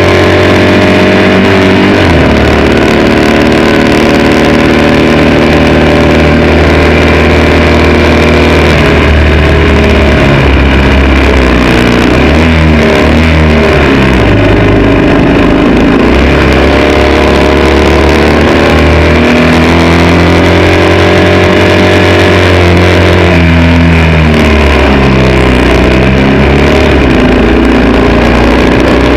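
Racing motorcycle engine at high revs, loud throughout, its pitch climbing under acceleration and dropping back sharply several times as it shifts gear and brakes for corners, over a rush of wind.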